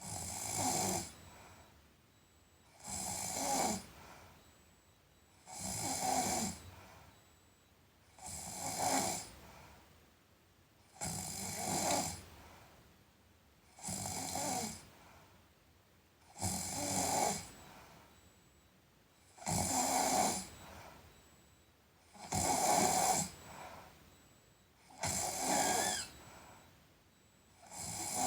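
A sleeping person snoring in a steady rhythm, about ten snores, each lasting about a second and coming roughly every three seconds.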